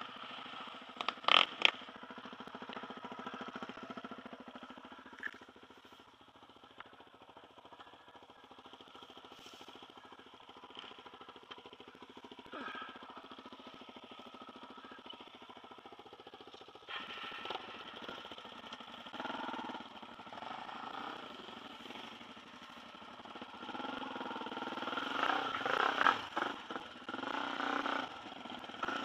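Dirt bike engines running near idle on a bush track, with two sharp knocks about a second in. Past the halfway point the engine steps up in level, and near the end it is revved unevenly as the bike pulls away.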